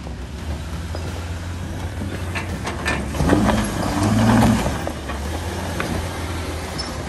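Jeep engine running low and steady, revving up about three seconds in and dropping back by about five seconds, with a few clicks and rattles just before the rev.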